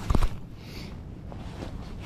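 A quick cluster of heavy knocks as a hand bumps against the body-worn camera, followed by faint rustling of handling.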